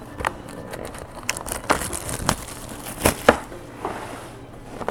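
Plastic wrapping being torn and crinkled off a sealed box of baseball cards: irregular crackling and snapping, with a few sharper snaps about two and three seconds in.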